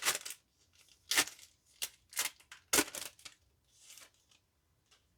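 A trading card pack wrapper being torn open by hand: a string of short, sharp rips and crinkles, the loudest in the first three seconds, with a softer one about four seconds in.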